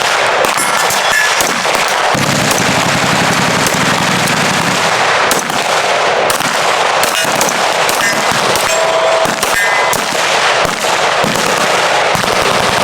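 Heavy, continuous gunfire from many guns firing at once on a shooting range, the shots coming fast and overlapping without a break, with brief ringing tones now and then from hit steel targets.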